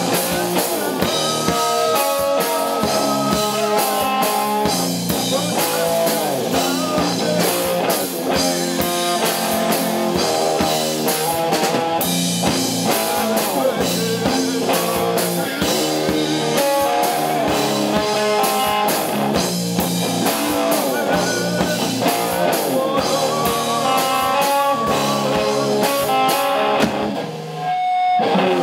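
Live rock music: distorted electric guitar playing over a drum kit, loud and continuous, with a brief break about a second before the end before the band comes back in.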